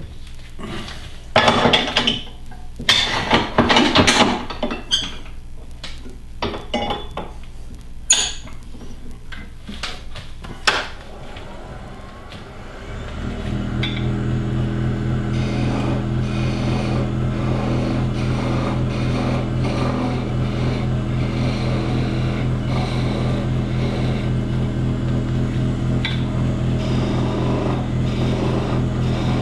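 Irregular metal knocks and clatters from the lathe's tool rest being set, then at about 13 s the wood lathe's motor starts and runs with a steady hum while a thin parting tool cuts at the spinning mahogany spoon's tip.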